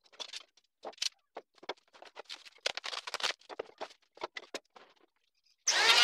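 Bar clamps being loosened and lifted off a glued-up wooden cutting board, giving a run of short scrapes and knocks. Near the end an electric hand planer switches on and runs loud and steady, the loudest sound here.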